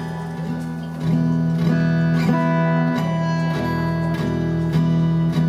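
Guitar strummed in a steady rhythm, about one stroke every half second, with chords ringing on: an instrumental passage between sung lines of a song.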